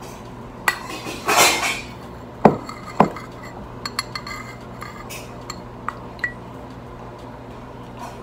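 Metal spoon scraping and clinking against a small ceramic bowl as food is scooped: a short scrape about a second in, two sharp clinks half a second apart, then a few lighter taps.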